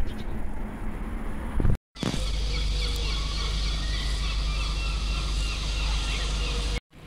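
Mercedes-Benz coach's diesel engine idling, a steady low rumble with a few held tones above it and faint chirps. Before it, about two seconds of outdoor wind noise that cuts off abruptly.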